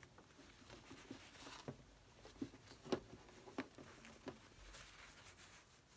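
Faint rustling of fabric being pushed by hand along a gathering thread to form a ruffle, with about five soft ticks a little over half a second apart in the middle.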